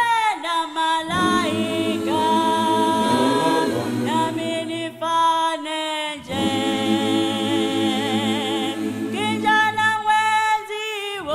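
Background music of a cappella voices singing long, held notes that change pitch every second or two.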